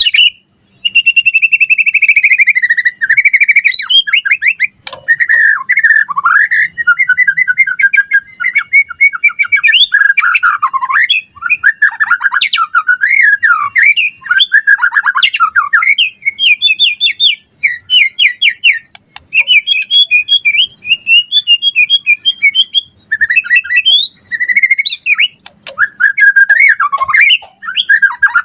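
White-rumped shama singing loudly and continuously: a rapid, varied run of clear whistles, fast trills and rising and falling glides, broken by short pauses.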